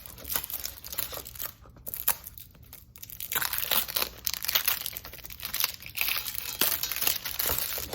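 Packaging being handled and opened by hand: a run of crinkling and rustling with small clicks, getting busier and louder about three seconds in.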